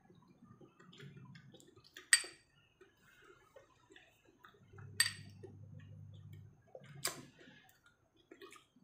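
Ceramic soup spoon clinking against a ceramic bowl three times, spaced a few seconds apart, with a soft low hum in between.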